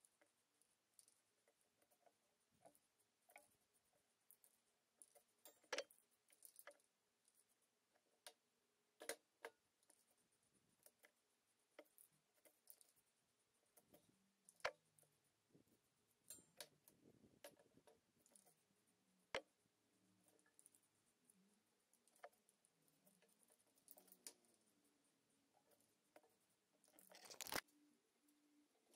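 Near silence broken by scattered faint clicks and taps at irregular intervals, with a soft scraping patch about two thirds of the way through and a brief rising hiss that cuts off near the end.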